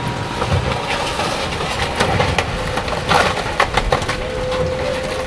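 Diesel engine of heavy demolition equipment running, with scattered clanks and crunches of debris being pushed into a pile. A steady whine starts about four seconds in.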